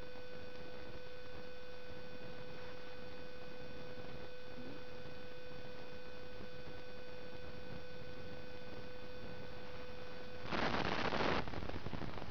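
A steady electrical whine, one mid-pitched tone with fainter higher overtones over a low hiss. Near the end it cuts out and a loud rush of noise on the microphone lasts about a second.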